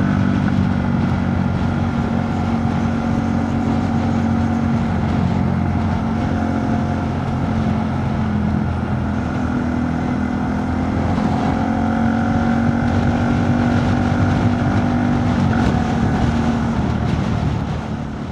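Honda Monkey 125's single-cylinder four-stroke engine running through a Scorpion titanium exhaust with the baffle in, under way with wind rushing over the microphone. The engine note eases off in the middle, picks up again, then fades out near the end.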